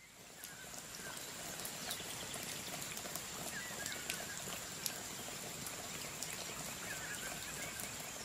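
Outdoor evening ambience: a steady high-pitched insect trill over a soft hiss, with a few short bird chirps, near the start, around two seconds in and again about seven seconds in.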